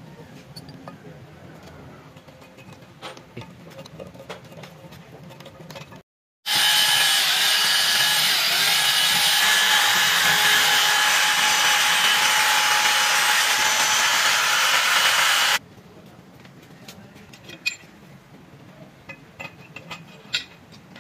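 Handheld rotary power tool running in a valve port of a diesel cylinder head, working the rusted valve seat: a loud, steady whine over a hiss that starts abruptly about six seconds in and cuts off about nine seconds later. Around it, faint clicks and knocks of metal parts being handled.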